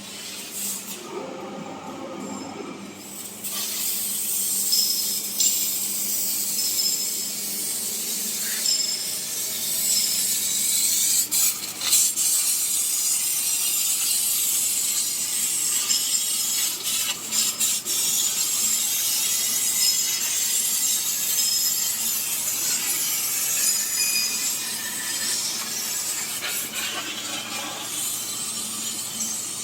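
CNC sheet-metal laser cutter running, a steady high hiss with a low hum beneath and a few sharp metallic clicks.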